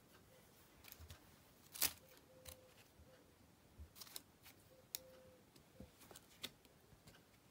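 Kitten batting and pawing a foil crinkle-ball toy on carpet: scattered sharp crinkles and taps, the loudest about two seconds in.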